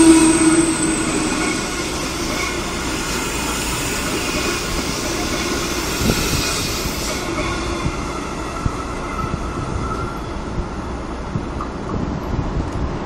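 The tail of a passenger train of 25T coaches rolls past and away along the rails. A steady tone and a high whine fade out within the first second or two. A steady rumble of rail noise with a few clicks follows.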